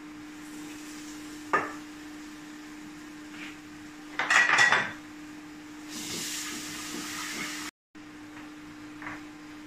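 Kitchen utensils knocking against a cooking pot: a single sharp knock about a second and a half in, then a louder metallic clatter a little past the middle as the pot is stirred, over a steady low hum. A soft hiss follows briefly.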